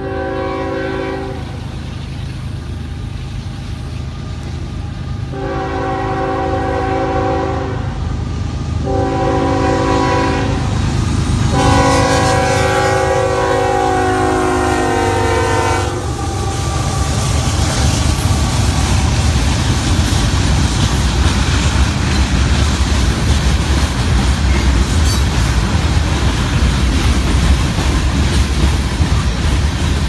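Union Pacific SD70ACe diesel locomotive sounding its multi-note air horn in separate blasts, the last held about four seconds as it reaches the crossing. Then the locomotives' engines rumble and the freight cars' wheels clack over the rail joints as the train rolls past close by.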